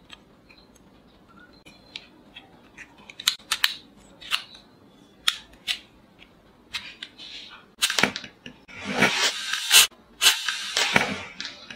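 Plastic clicks and snaps of a toy revolver as rubber-tipped bullets are pushed into its cylinder and the cylinder is swung shut, a dozen or so sharp separate clicks. Near the end come two louder stretches of rustling handling noise, each about a second long.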